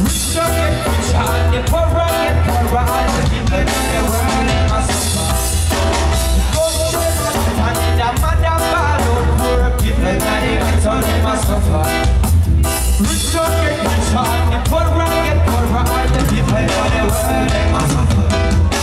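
Reggae band playing live, with heavy bass and drum kit under keyboard and guitar, and a singer on the microphone.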